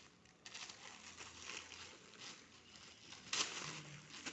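Gift wrapping rustling and crinkling in short bursts as a present is unwrapped by hand, with the loudest burst a little over three seconds in.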